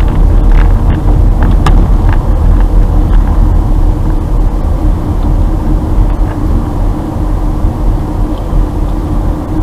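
A car driving slowly, heard from inside the cabin: a steady low rumble of engine and road noise. A few light clicks come in the first two seconds.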